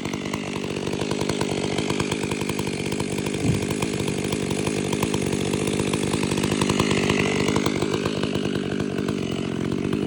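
Two-stroke chainsaw engine running steadily at a constant speed.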